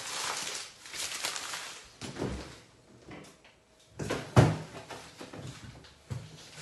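A refrigerator's crisper drawer sliding, then a few knocks and thuds as things are put into the fridge, the loudest about four and a half seconds in.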